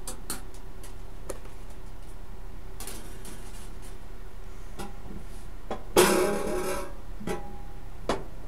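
Metal parts being handled during sheet-metal work, over a steady low hum. There are scattered light clicks and knocks, and about six seconds in a sharp knock that rings on with a pitched tone for about a second. Another knock comes near the end.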